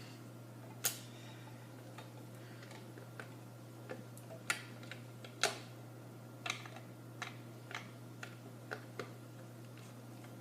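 Irregular sharp clicks and taps of plastic Nerf gun parts being handled and pried apart, a dozen or so, the loudest about a second in and around the middle.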